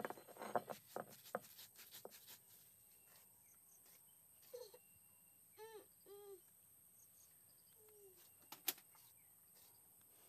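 A hand-held grinding stone knocking and crushing dry spices on a rock slab, a quick run of sharp knocks in the first two seconds or so. Then a few short chirping bird calls about halfway through, and one more sharp knock near the end.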